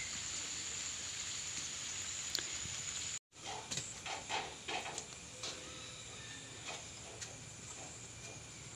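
Steady rain hissing on garden foliage, cut off abruptly about three seconds in. After that, a few short scuffs and clicks, then a quieter steady background hiss with faint insect chirring.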